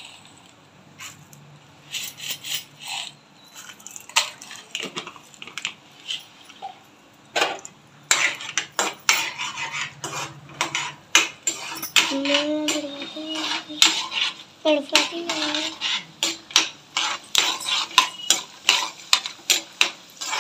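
Metal ladle scraping and clinking against an aluminium kadai as peanuts are stirred and tossed in hot oil. The strokes are scattered at first and come in a quick, busy run from about eight seconds in.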